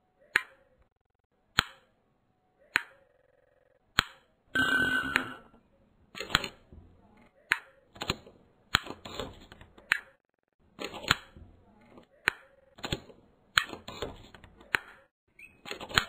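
Sharp clicks of a wall switch and a sliding door latch bolt, edited into a rhythm. One click comes about every second and a quarter at first. About four and a half seconds in there is a longer rattling scrape with a ringing note, and after it the clicks come about twice as fast.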